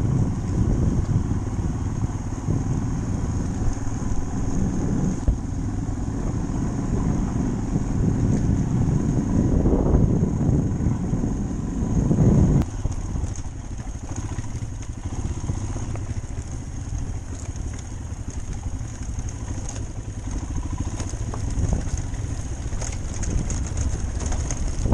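Royal Enfield motorcycle running at low speed over a rough, stony dirt track, heard from on the bike. The rumble swells for a few seconds around ten seconds in and drops off suddenly about halfway.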